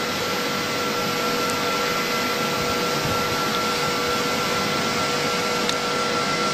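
Steady, even rushing noise with a few faint constant tones running through it.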